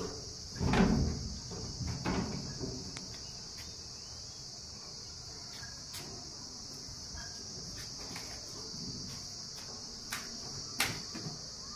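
Steady high-pitched chirring of crickets, with a few soft thumps and rustles, the loudest about a second in.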